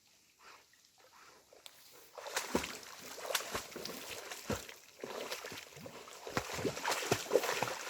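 German wirehaired pointer splashing and sloshing through shallow water as it brings back a shot duck, starting about two seconds in and growing louder.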